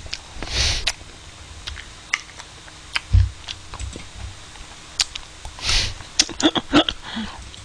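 Close-up eating sounds: scattered soft mouth clicks and smacks from eating ice cream, with two short breathy sounds, one near the start and one about two-thirds in, and a quick run of clicks near the end.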